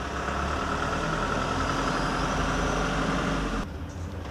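Steady motor-vehicle engine noise with a low hum, cutting off abruptly a little over three and a half seconds in, leaving quieter outdoor background.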